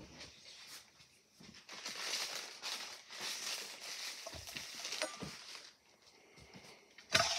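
Cooked spinach mixture being scraped out of a pan into a bowl: a few seconds of scraping and rustling, then one sharp clank of cookware near the end.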